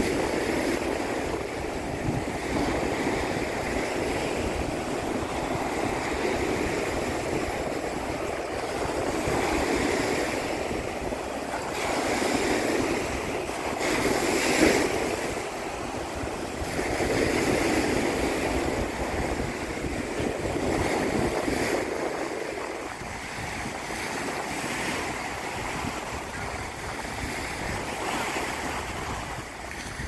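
Waves of the Sea of Azov washing onto the beach, swelling and fading every few seconds, with wind rumbling on the microphone and one brief louder burst about halfway through.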